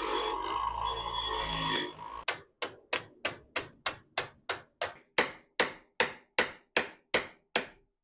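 A bench grinder's wire wheel runs for about two seconds and stops, then a hammer taps steadily on a steel car door hinge part held in a bench vise, about three even strikes a second, each with a short metallic ring.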